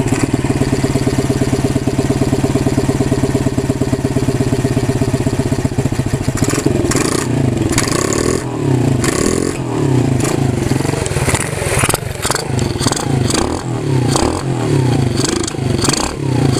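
Small single-cylinder four-stroke engine of a 110cc pit bike running: a steady idle for about six seconds, then its speed rises and falls repeatedly until the end.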